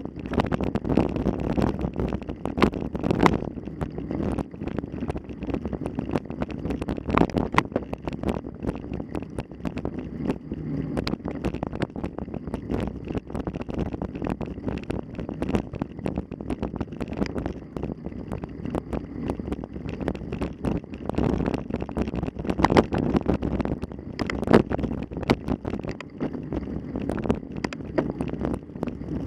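Wind rumbling on the microphone, with rattles and knocks scattered throughout.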